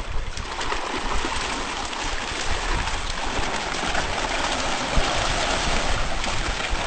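Continuous splashing and churning of water as piranhas thrash at the surface, snatching at chicken-meat bait held just above it.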